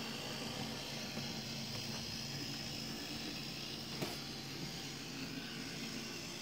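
Faint steady hum and hiss of a model railway SKL track-maintenance trolley running along the track, with a single click about four seconds in.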